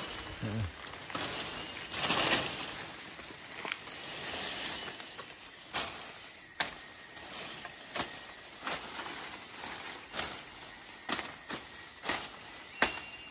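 Rustling of plants, then a steady run of sharp chopping strokes, roughly one to two a second: a blade chopping through plant stalks.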